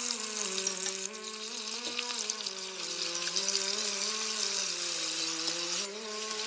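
Chopped onion, tomato and red bell pepper sizzling in hot oil in an enamelled cast-iron pot while a metal spoon stirs them. A steady low hum that wavers slightly in pitch runs underneath.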